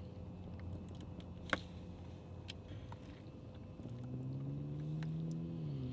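Low hum of a boat's engine running, its pitch rising slowly in the second half and dropping near the end, with a single sharp click about a second and a half in.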